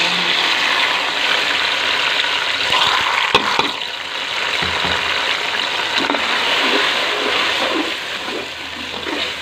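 Wet blended tomato, ginger, garlic and green chilli paste sizzling loudly in hot ghee over fried onions, a steady hiss that eases slightly near the end. A few knocks come through about three to four seconds in.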